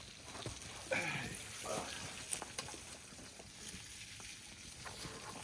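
Stew ingredients cooking in a pot over a campfire, with scattered clicks and knocks of handling and cooking. A short, falling pitched call comes about a second in.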